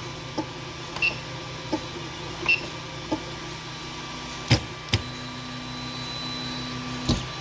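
Bowden-tube 3D printer running with a steady fan and motor hum and a light click about every two-thirds of a second. About four and a half seconds in come two sharper clicks, then a steady motor whine for about two seconds as the printer pauses, ending in another click.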